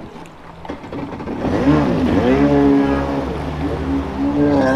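Stand-up jet ski's two-stroke engine revving up as the ski pulls away, its pitch swinging up and down several times with the throttle before settling and climbing again near the end.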